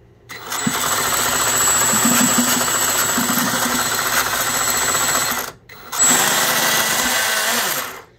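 Cison L4-175 model inline four-cylinder engine spun over by a home-made brushless electric starter, a fast mechanical whirring and clatter in two long bursts with a short break just past halfway.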